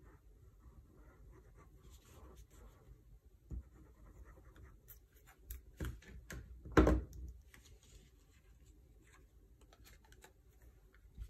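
Liquid glue bottle's tip scratching faintly across designer paper, then a few light knocks and taps of handling, the loudest about seven seconds in.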